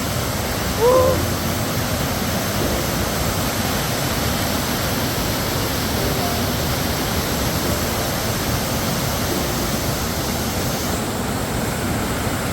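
Heavy rain falling in a loud, steady hiss. A short pitched voice-like sound comes about a second in.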